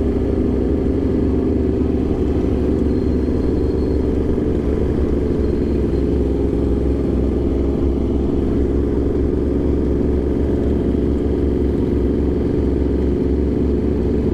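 Motorcycle engine running steadily at even revs while riding along, with a constant low rumble and no revving.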